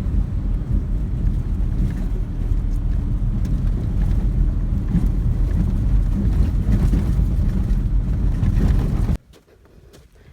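Steady low rumble of a vehicle on the move, cutting off abruptly about nine seconds in.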